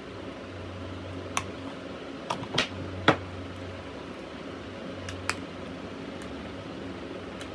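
Steady fan-like hum with a handful of sharp clicks and taps, the loudest about three seconds in.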